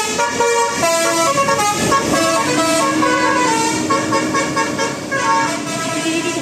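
Bus 'telolet basuri' musical horn playing a tune of several short notes. A long note is held through the middle, over street noise.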